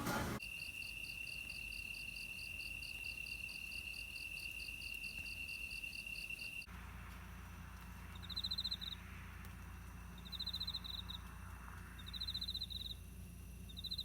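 Insects singing: first a steady high trill with a fast pulsing chirp above it, then, after an abrupt change, a different insect's short buzzy bursts repeating about every two seconds over a low hum.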